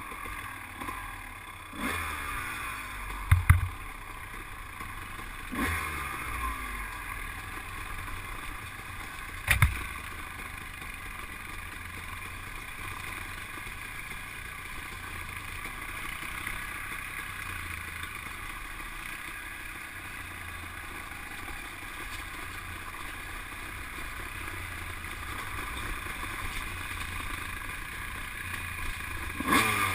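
ATV engine running while riding a dirt trail, its pitch sweeping up and down with the throttle a few times in the first six seconds, then holding steady. Two sharp knocks stand out, about three seconds in and about ten seconds in.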